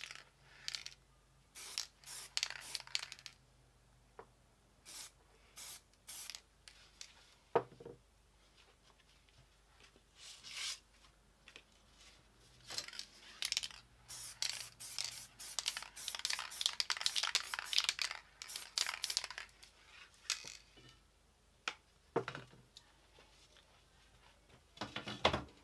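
Aerosol spray paint can hissing in short bursts, with a denser run of quick sprays in the middle. A couple of sharp knocks, one about a third of the way in and one near the end.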